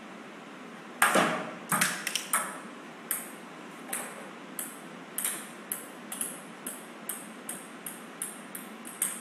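A string of sharp, ringing taps, the first few loud, then fainter ones coming irregularly about two or three a second: small plastic balls, such as table tennis balls, bouncing on a hard floor.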